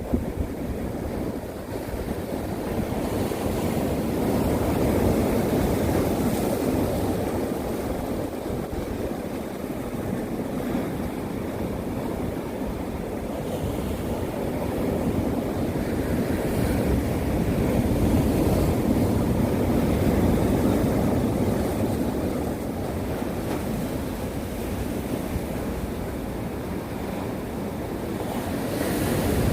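Winter sea surf washing onto the shore: a continuous deep rushing that slowly swells and eases over several seconds at a time.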